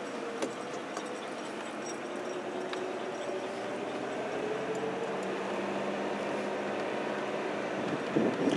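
Vehicle running slowly in reverse on a dirt track, heard from inside the cab: steady engine and tyre noise with a faint steady whine.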